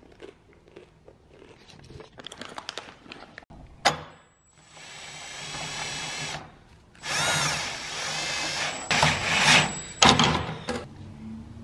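Power drill running in three bursts, about four seconds in, then twice more near the end, its motor pitch sweeping as it spins up and bites, while the hood hinge is fastened.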